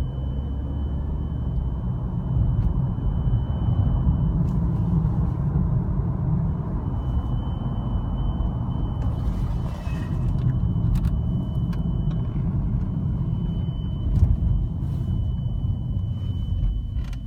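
A steady high-pitched tone, the cabin beeping noise of a BMW F30 320i, heard inside the car over low engine and road rumble; it drops out a few times and comes back. By the owner's account it appears on restarting after a short stop and lasts until the car warms up.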